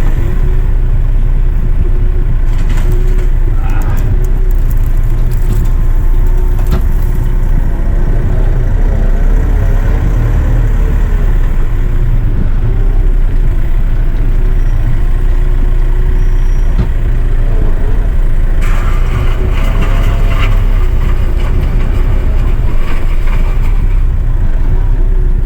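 Kioti RX7320 tractor's diesel engine running steadily under load while the loader works, with a few sharp cracks about three to seven seconds in.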